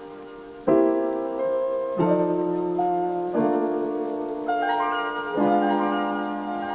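Background piano music: slow, sustained chords struck every second or so, with a short rising run of higher notes about two-thirds through.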